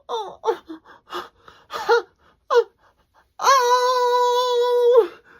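A woman's voice straining to hold back a sneeze: short gasps and whimpers, then a long, steady high-pitched note held for about a second and a half that cuts off suddenly.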